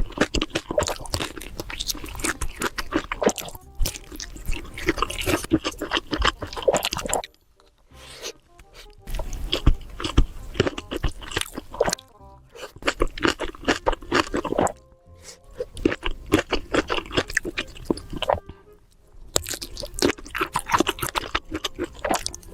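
Close-miked chewing of sausages, crunchy and wet, with snapping casings. The chewing comes in runs of a few seconds broken by short pauses, with music underneath.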